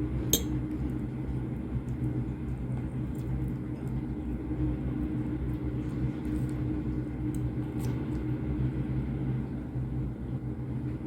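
Steady low machine hum, with a sharp click about half a second in and a few faint ticks later.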